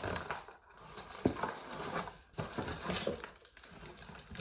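A cardboard delivery box being opened and handled: irregular rustles, scrapes and knocks, ending with an item in a plastic bag being pulled out.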